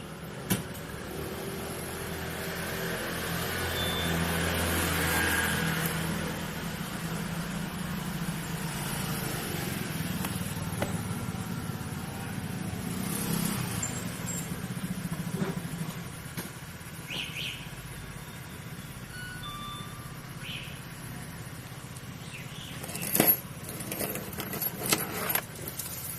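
Car running with a steady low rumble that swells and fades over the first several seconds, a few brief high tones scattered through the middle, and a cluster of sharp clicks near the end.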